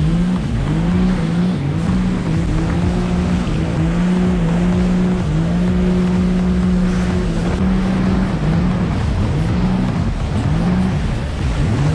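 Yamaha jet ski engine running under throttle, its pitch rising and settling again and again as the throttle is worked through turns, over a rush of wind and spraying water.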